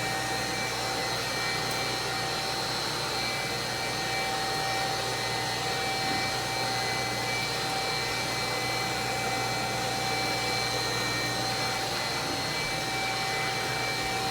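1952 Electrolux vacuum cleaner running steadily while it picks up pine needles, its electric motor giving a steady whine over the rush of air through the hose.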